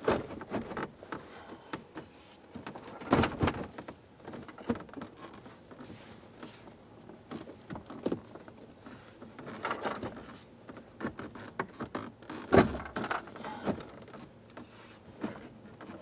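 Car centre console and armrest being shifted forward and fitted back over the shifter: scattered knocks, scrapes and rubbing, with two louder knocks about three seconds in and again about twelve and a half seconds in.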